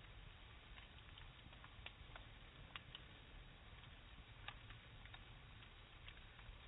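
A campfire crackling faintly: scattered, irregular small pops and ticks over a low background hum.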